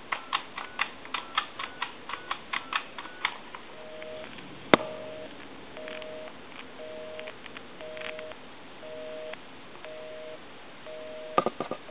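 A Trimline telephone dialing a number by touch-tone: a quick run of about a dozen short beeps with button clicks, then a sharp click and the US line busy signal, a two-tone hum pulsing on and off about once a second.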